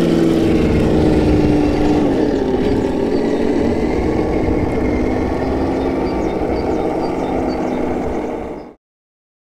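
Axial SCX10 II Jeep Wrangler Rubicon 1:10 RC crawler running, a steady motor hum whose pitch drops about two seconds in as it slows. It fades out quickly shortly before the end.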